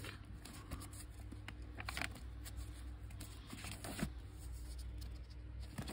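Faint rustling of 12-inch vinyl records in paper sleeves being flipped through by hand, with a few soft clicks of sleeve edges knocking together over a low steady hum.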